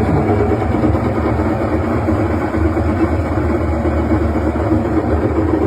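Washing machine spinning up in its spin cycle with a steady, even hum. It runs smoothly with no knocking, on freshly replaced shock absorbers.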